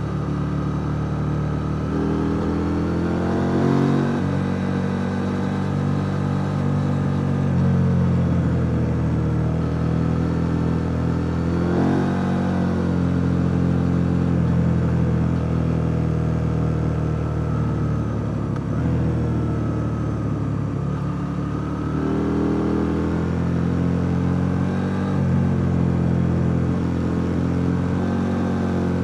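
KTM 890 Duke R's parallel-twin engine heard onboard while riding, its pitch rising and falling repeatedly as the throttle opens and closes through a run of bends.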